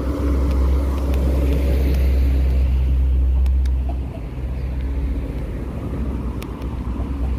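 Road traffic on a city street: a steady low vehicle rumble, loudest for the first four seconds, then easing.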